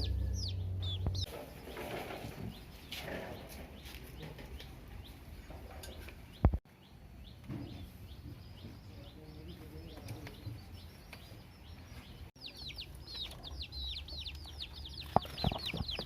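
Chicks peeping: rapid high peeps that slide down in pitch, heard in the first second or so and again through the last few seconds. A single sharp knock about six and a half seconds in.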